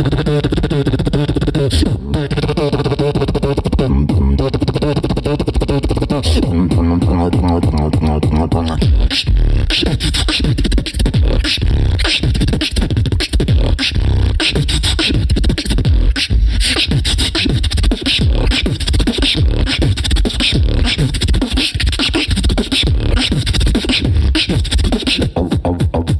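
Human beatboxing into a handheld microphone. It opens with held, pitched bass tones under a beat, then about nine seconds in switches to a fast, dense run of percussive clicks and snare-like hits.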